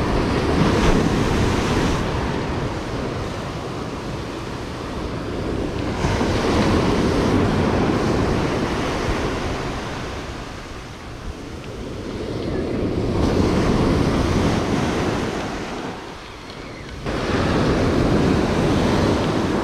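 Ocean surf breaking and washing up a sandy, rocky shore, swelling and fading in long surges every six seconds or so.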